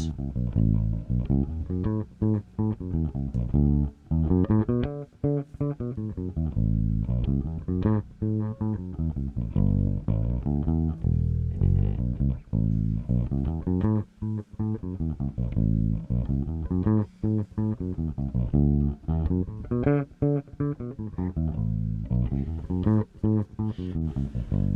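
Instrumental music led by bass guitar and plucked guitar, with a steady beat.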